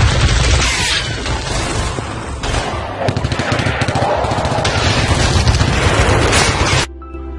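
Battle sound effect: rapid gunfire over an explosion rumble. It cuts off suddenly near the end, and soft music begins.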